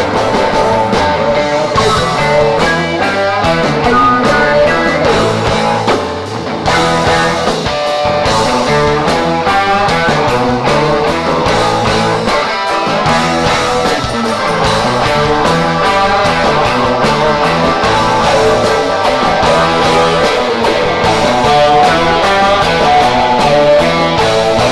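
Live rock band playing an instrumental passage: electric guitar over bass and drums.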